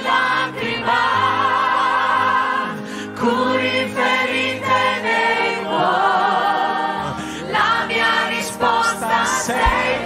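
Christian worship song sung in Italian: voices hold long notes with vibrato over instrumental backing, and low drum beats come in near the end.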